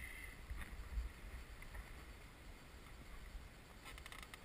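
Low wind rumble on the microphone aboard a small inflatable boat, with a soft knock about a second in and a few light clicks near the end.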